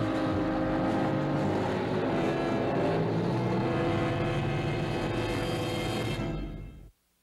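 An old cargo truck's engine labouring as the truck climbs a steep slope, running steadily and then fading out about a second before the end.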